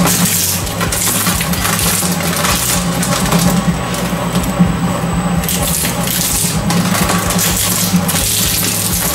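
Twin-shaft industrial shredder running with a steady motor hum while its steel cutters crunch and snap disposable plastic forks into pieces. The crackling dies down for about two seconds in the middle as the hopper empties, then starts again as a new handful of forks drops in.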